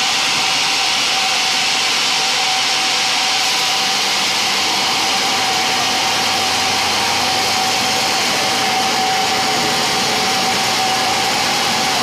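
Band sawmill running steadily, its blade cutting lengthwise through a large jowar-wood log. It makes a loud, even hiss with a high steady whine through it.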